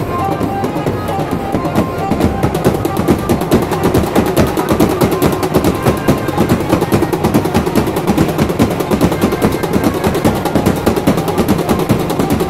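Devotional kirtan music in a large crowd, carried by a fast, dense, continuous run of sharp percussive beats that gets a little louder about two seconds in.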